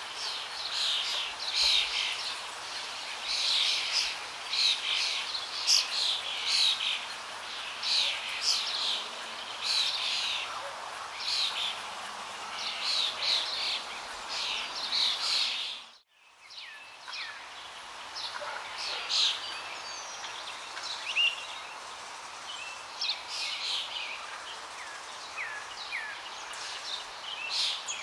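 Small birds chirping: many short, high calls repeating over and over. The sound drops out abruptly for a moment just past halfway, then the chirping carries on a little fainter.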